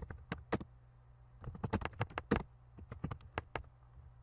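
Computer keyboard typing: a run of irregular keystroke clicks, with a short pause about a second in and a quick flurry of keys after it.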